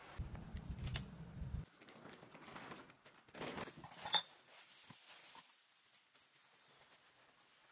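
Camping gear being packed away: a low muffled rumble of handling in the first second and a half, some rustling, and a single sharp metallic clink about four seconds in, like cookware knocking together.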